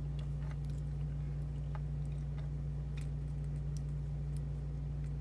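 Steady low hum with faint, scattered small metallic clicks as a shim is worked into the back of a padlock.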